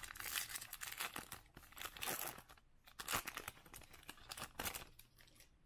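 Foil wrapper of a baseball card pack being torn open and crinkled by hand as the cards are pulled out. The crackling comes in quick runs and dies down near the end.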